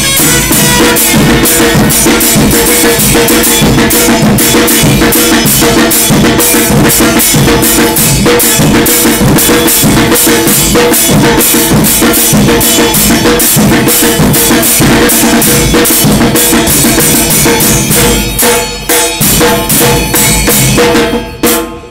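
Banda drumming: two bass drums (tamboras) with cymbals mounted on top, struck in a steady fast beat with cymbal crashes over held brass notes. It is loud throughout, then breaks up and stops near the end.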